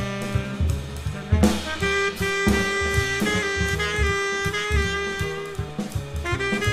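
Jazz music with a horn lead over a drum kit, the horn holding one long note through the middle.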